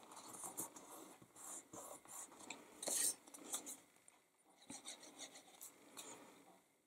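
Faint rustling and rubbing of cardstock being handled and pressed flat on a work mat, in short irregular scrapes, loudest about three seconds in.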